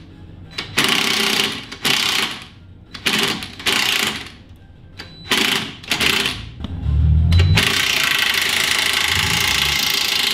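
Angle grinder cutting metal on the car's suspension, triggered in short bursts that stop and start, then running steadily for the last few seconds. A heavy low thud comes about seven seconds in.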